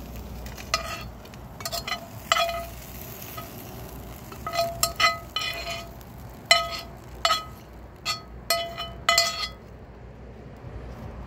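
Meat and potatoes frying in a pan, with a metal utensil stirring them and knocking against the pan in short, irregular ringing clinks. The clinks are most frequent in the second half.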